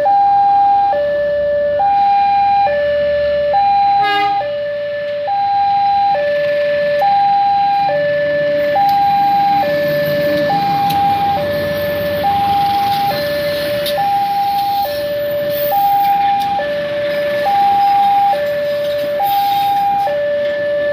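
Railway level-crossing warning alarm sounding a steady two-tone, switching between a high and a low tone about every three-quarters of a second. Under it, a diesel locomotive passes close by with a low engine rumble that swells about halfway through, followed by its passenger coaches.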